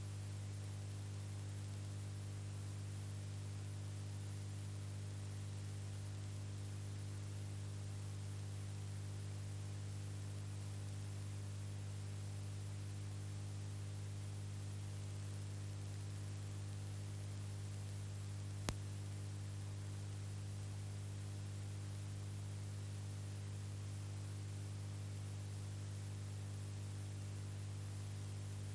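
Steady electrical hum with hiss and no other sound: the 8 mm footage was shot silent, so only the transfer's background noise is heard. A single sharp click about two-thirds of the way in.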